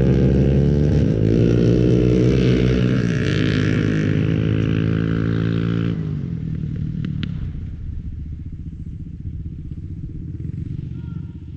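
Quad (ATV) engine running loud and steady under throttle, then dropping abruptly about six seconds in to a much quieter low rumble.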